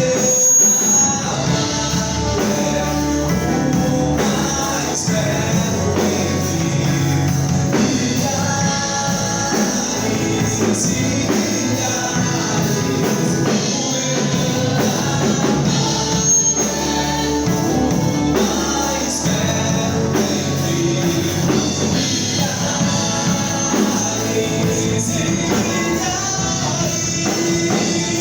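Live gospel worship band playing a song with singing over a rock-style backing.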